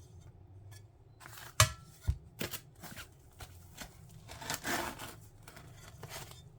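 Sheets of stained glass being handled and set down: a sharp clink of glass with a brief ring about one and a half seconds in, then a few lighter knocks and a rustle near the middle.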